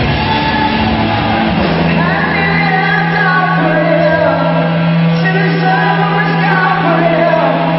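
Live rock band playing with guitars, drums and keyboard under singing vocals. A low note is held steady from about two seconds in.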